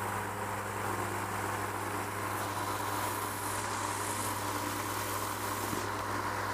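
Powered parachute's engine running steadily, driving its pusher propeller, with a constant low hum and no change in pitch.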